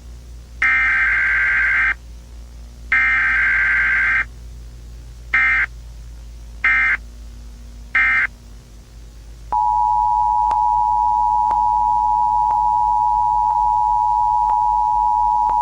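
Emergency Alert System data bursts: two long warbling bursts, then three short ones, followed from about nine and a half seconds in by the steady two-tone EAS attention signal, which carries a faint tick about once a second.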